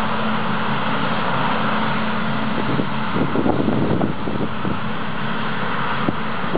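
Combine harvester running steadily while harvesting wheat: a constant engine and machinery drone with a held hum. Wind buffets the microphone now and then, most around the middle.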